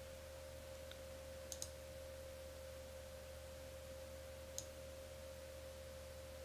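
Faint computer mouse clicks: a quick double click about a second and a half in and a single click later. Underneath is a steady faint high tone with a low hum.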